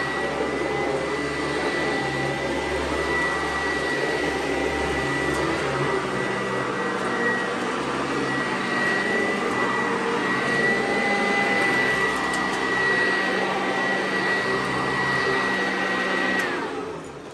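Sanitaire SC899 upright vacuum cleaner running steadily with a high motor whine. It is switched off near the end, and the whine drops as the motor winds down.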